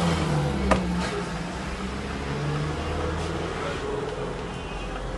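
A motor vehicle's engine running steadily, with one sharp click or knock about 0.7 seconds in.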